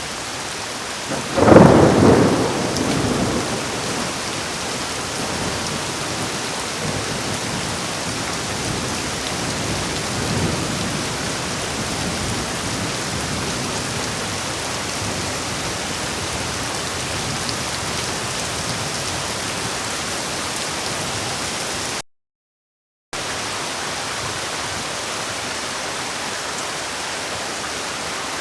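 Heavy rain falling steadily, with a sudden loud thunderclap about a second and a half in that rumbles away over the next couple of seconds, and a fainter rumble of thunder later on. The sound cuts out completely for about a second near the end.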